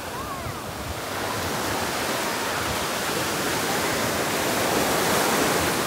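Sea surf on a sandy beach: the rush of a breaking wave washing up the shore, building over a few seconds to its loudest just before the end.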